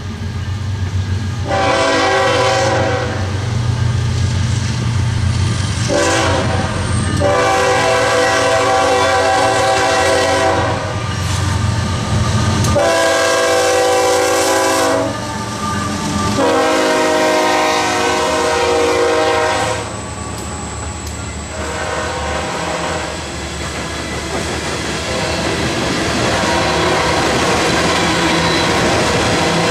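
CSX freight train going by: its diesel locomotives sound a multi-note air horn in a series of long blasts, about five in the first twenty seconds, over the low rumble of the engines. Then the steady rolling clatter of freight cars' wheels on the rails.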